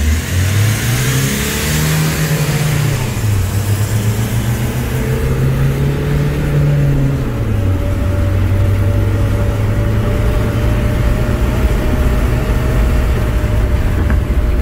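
Mahindra XUV500's engine under hard acceleration from a standing start, heard inside the cabin. The revs climb and drop at a gear change about three seconds in, climb again and drop at a second shift about seven and a half seconds in, then hold steady with loud road noise.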